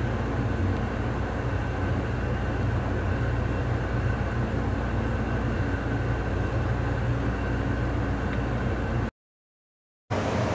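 Steady interior rumble and hum inside an Amtrak Coast Starlight passenger coach car, with no voices. It cuts to silence about nine seconds in and comes back a second later.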